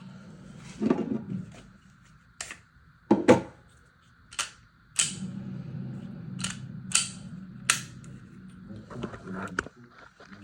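Glock 43X pistol being checked clear: a string of about nine sharp metallic clicks and clacks from working its slide and parts, spaced irregularly over several seconds.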